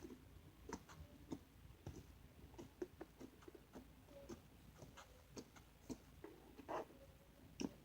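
Slime being squeezed and pressed, giving faint, irregular clicks and small pops, roughly one or two a second.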